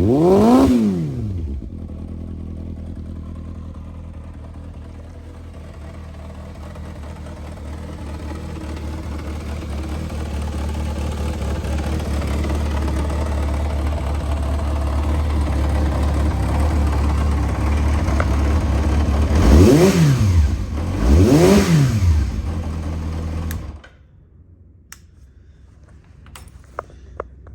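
Yamaha XJR400R's air-cooled inline-four idling through a K2TEC aftermarket silencer and blipped three times, once near the start and twice about twenty seconds in, each rev rising and falling. The engine then stops abruptly a few seconds before the end, leaving a few faint clicks.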